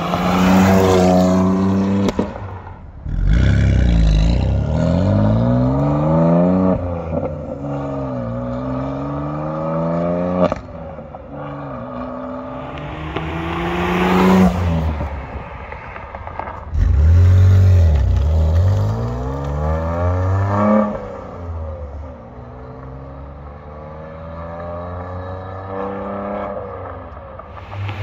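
2021 BMW M2 Competition's twin-turbo straight-six running through a custom mid-pipe (resonator-delete) exhaust, accelerating in several pulls: the revs climb, then drop sharply at each gear change or lift-off. It is loudest as the car passes close by.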